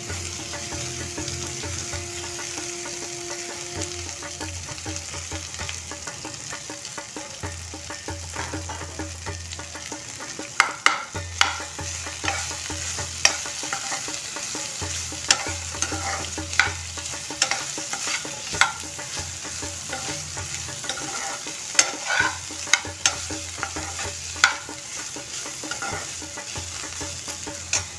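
Chopped okra frying and sizzling in hot peanut oil in a steel kadhai, stirred with a steel spoon. From about ten seconds in, the spoon knocks and scrapes against the pan in frequent sharp clicks.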